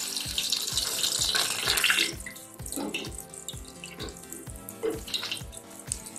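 Okra pieces sizzling in hot oil in a frying pan: a loud hiss for the first two seconds that then dies down to quieter, uneven spluttering.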